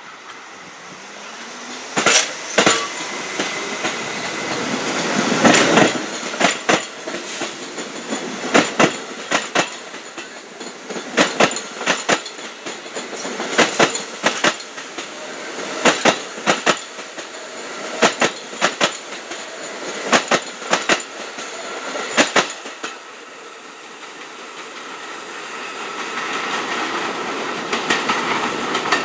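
New York City subway train passing close by, its wheels clacking over rail joints and switches in regular groups of clicks for about twenty seconds. Near the end a steady hum builds as another train approaches.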